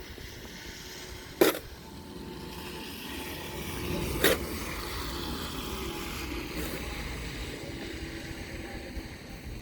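Snow shovel scraping over pavement, with two sharp knocks of the blade, about a second and a half in and again near the middle, the second one following a rising scrape.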